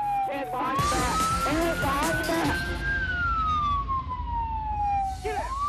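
Police car siren on a slow wail: its pitch bottoms out about half a second in, climbs for about two and a half seconds, slides back down, and starts climbing again near the end.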